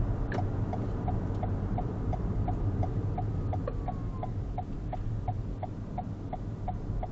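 Car's turn-signal indicator ticking steadily, about three clicks a second, over the low drone of engine and road noise in the cabin, signalling a right turn through a roundabout.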